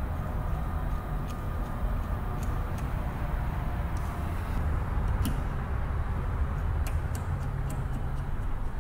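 Scattered light clicks and taps of fuel line fittings being handled and fitted at a throttle body fuel injection unit, over a steady low rumble.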